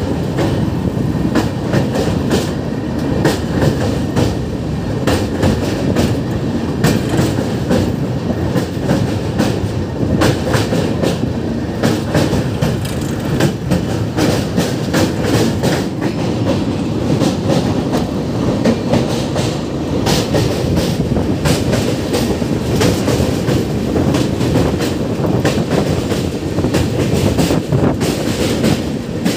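Janshatabdi Express coach wheels running at speed over a riveted steel truss bridge, a steady rumble with a rapid, uneven clickety-clack of wheel clacks, heard from aboard the moving train.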